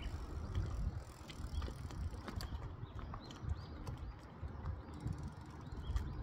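A BMX bike ridden slowly on asphalt, with scattered irregular clicks from the bike and its freewheel, over a steady low outdoor rumble.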